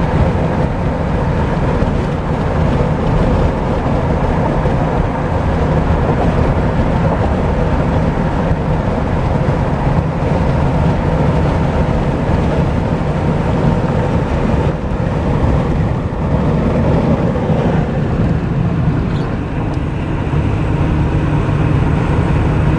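Steady road noise of a car moving at freeway speed, heard from inside the cabin: a constant low drone of tyres and engine with no sudden events.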